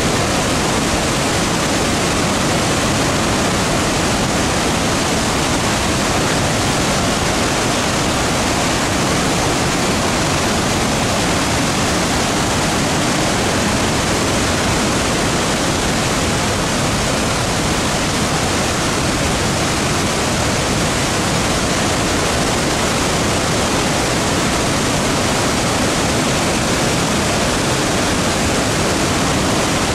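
Victoria Falls on the Zambezi River: a loud, steady rush of a huge volume of water pouring over the falls, unchanging throughout.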